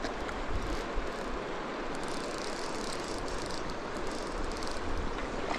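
Rushing of a fast, rocky mountain river, with short runs of fine ratchet clicking from an Orvis fly reel as line is worked in or taken out by a hooked brown trout.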